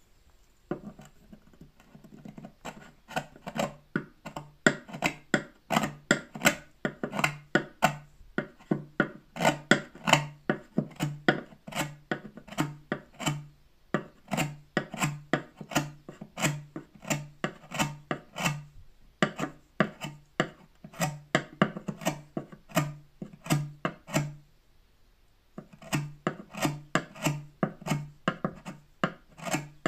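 A hand file rasping back and forth across a wooden guitar bridge during a bridge pin-hole repair, in steady strokes of about two a second. The strokes pause for about a second some 25 seconds in, then start again.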